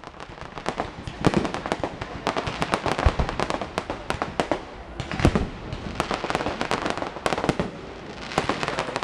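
Fireworks display: a steady barrage of aerial shells bursting, with dense crackling and popping and a heavier bang every second or two.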